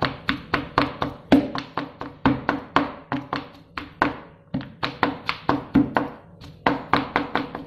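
Chef's knife chopping boiled shrimp on a plastic cutting board: a steady run of quick knocks, about four to five a second, with a couple of brief breaks.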